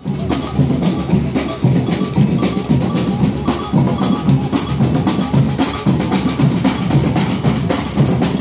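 Marching carnival drum band playing: large bass drums and snare drums beating a fast, driving rhythm with many strikes a second.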